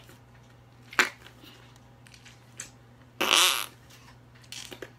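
Flarp noise putty pushed into its toy-toilet container, letting out a fart noise about three seconds in. A short sharp click comes about a second in.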